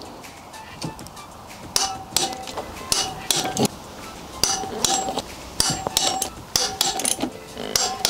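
Torque wrench ratcheting and clicking on the rear wheel bolts of a BMW R1200GS Adventure as they are tightened to 60 Nm: a series of sharp metallic clicks in short bunches, some with a brief ring.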